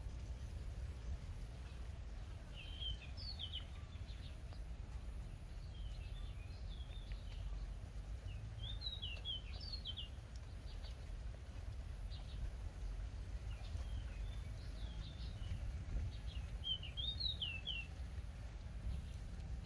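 Small birds chirping in short bursts of quick rising-and-falling notes every few seconds, over a steady low rumble.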